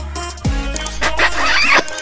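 Background music with a beat and deep bass kicks that drop in pitch. In the second half, a bright swirling sound effect rises over it.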